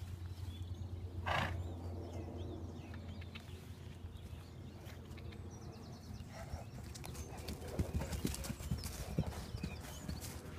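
Spanish Mustang horses galloping and bucking on grass, their hoofbeats thudding, thickest and loudest in the last few seconds as they run close by. One short horse call about a second and a half in.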